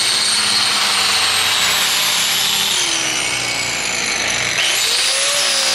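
Corded angle grinder grinding into the rubber lugs of a tractor-pulling tire to sharpen the tread. A steady high motor whine mixed with rubbing grind, its pitch sagging under load and then climbing sharply about four and a half seconds in.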